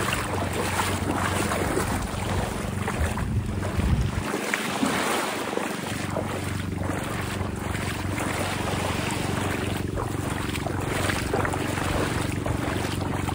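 Wind buffeting the phone's microphone in rough gusts, easing briefly about four seconds in, over small waves lapping in calm shallow sea water.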